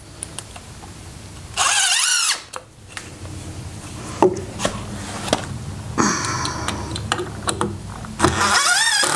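Cordless drill driving screws into 2x4 wood in two short runs, its motor whine rising and falling with the trigger: one about a second and a half in and a longer one near the end. Knocks and clicks from handling the wood and screws come between the runs.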